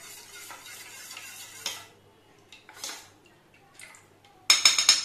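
Steel spoon stirring a thin cornflour-and-flour batter in a stainless steel bowl, scraping against the metal for about two seconds, then a few light taps. Near the end, a loud quick run of metal-on-metal clinks.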